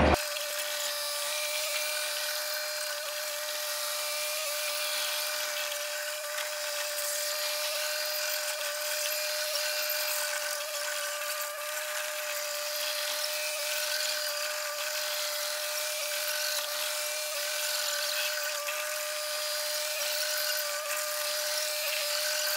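Steady high-pitched mechanical whine held at one unchanging pitch, with fainter overtones above it over a hiss.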